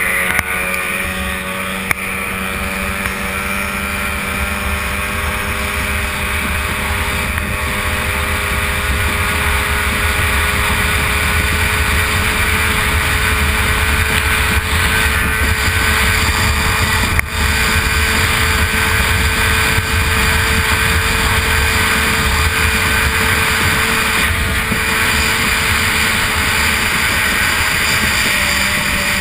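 Stock outboard racing engine of an A-Stock hydroplane running flat out, a steady high engine note heard from on board, with wind and water rushing past the hull.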